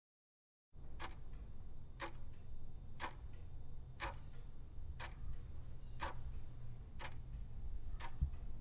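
Clock-tick sound effect of a countdown timer: eight sharp, even ticks, one a second, over a low steady hum.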